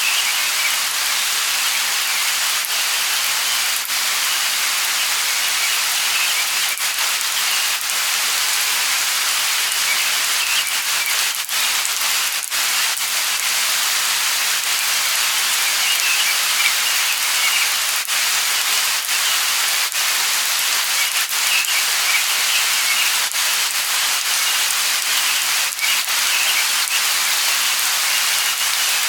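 Light rain falling steadily, a constant hiss of patter with many separate drops ticking sharply through it.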